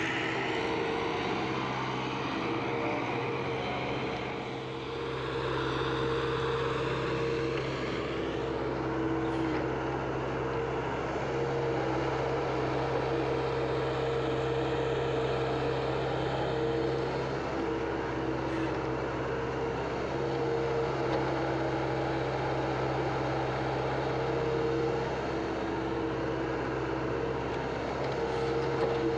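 Diesel engine of a JCB JS81 crawler excavator running steadily under digging load, a constant hum with a higher tone that fades in and out as the hydraulics work.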